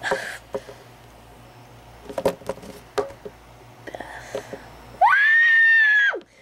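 A girl's high-pitched scream, held for about a second near the end, rising at the start and dropping away as it ends. Before it, a few light knocks of plastic toy figures being handled.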